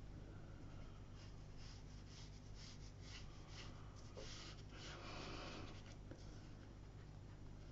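Faint, scratchy strokes of a watercolour brush on paper, a run of short brushing sounds that is busiest just past the middle. A low steady hum runs underneath.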